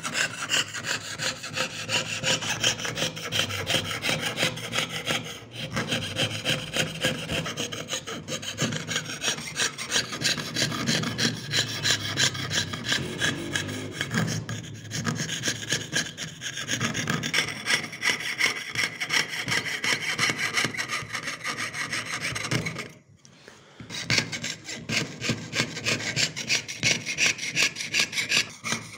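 Jeweler's saw piercing thin sheet metal, with steady rhythmic back-and-forth strokes at about two a second. The sawing stops for about a second roughly three quarters of the way through, then resumes.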